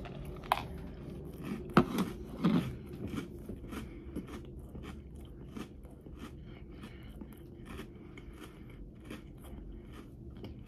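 A person chewing a mouthful of crunchy Magic Spoon cookies-and-cream cereal, the cookie and cream pieces eaten together. The crunches are louder at first, then settle into a steady run of soft crunches about three a second.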